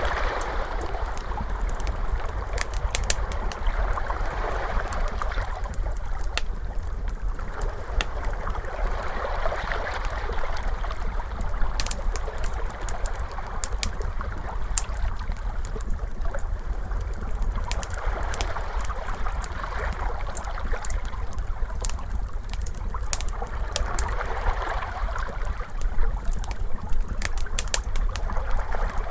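Wood fire crackling with frequent sharp pops, layered over ocean waves washing in and out in slow swells several seconds apart, with a steady low rumble beneath.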